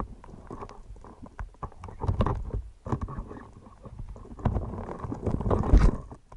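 Underwater knocks and scraping of stone against stone on the seabed, over low muffled rumbling, as a rock is shifted. The loudest stretches come about two seconds in and again near the end.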